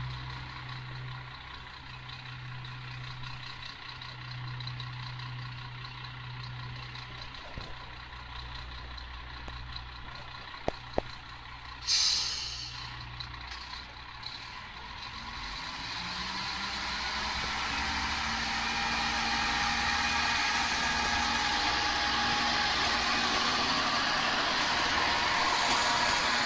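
Kanto Railway Jōsō Line diesel railcar idling with a steady low hum, a short sharp air hiss about twelve seconds in, then its engine rising in pitch as it pulls away, the running noise growing steadily louder.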